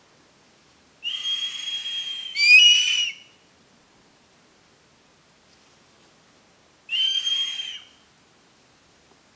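Crested serpent eagles calling back and forth with high, loud whistled cries. A held call of about a second is answered at once by a louder, wavering call, and one more call comes a few seconds later.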